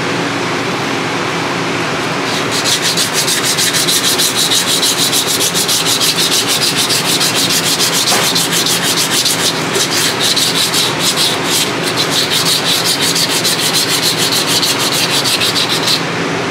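Hand sanding of a GM 10-bolt differential carrier with a sanding pad: quick back-and-forth rubbing strokes, about four a second, starting about two and a half seconds in and stopping just before the end. A steady background hum runs under the strokes.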